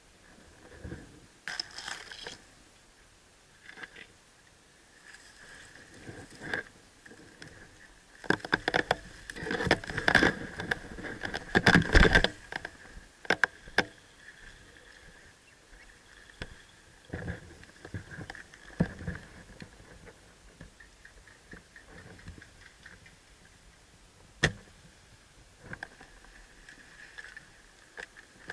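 Irregular rustling, scraping and knocking with scattered sharp clicks, loudest in a burst from about eight to twelve seconds in, over a faint steady high hum.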